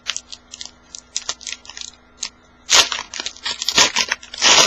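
A foil trading-card pack wrapper being torn open and crinkled, among quick flicks and taps of cards being handled. Two louder tearing rustles come a little past the middle and near the end.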